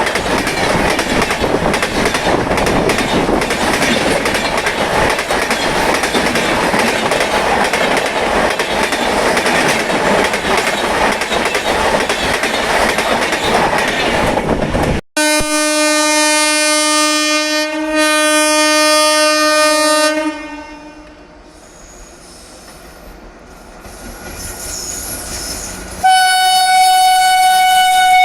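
An Indian Railways train passes close and fast, its wheels rattling and clattering over the rails for about fifteen seconds. Then a locomotive air horn sounds one long, steady, low-pitched blast of about five seconds. Near the end a higher-pitched horn tone starts abruptly.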